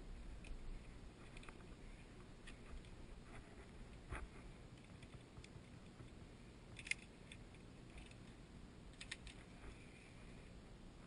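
Scattered small metallic clicks and clacks of via ferrata carabiners knocking and sliding on the steel safety cable. The sharpest comes about seven seconds in, with a quick cluster a couple of seconds later, over a faint low rumble.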